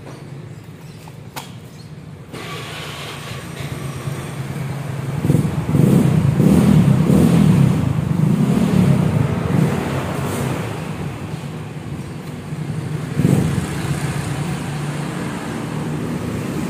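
A motor vehicle engine running at idle, getting louder about five seconds in and staying loud and uneven for several seconds before settling back.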